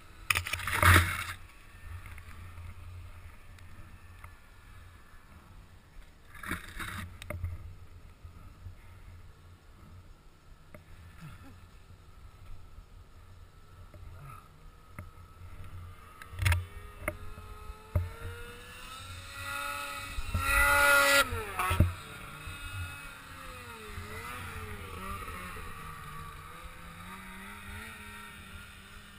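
Snowmobile engine running at changing speed, revving up to its loudest about 20 to 22 seconds in, then running on lower with the pitch rising and falling. A few sharp thumps on the helmet camera, the loudest about a second in.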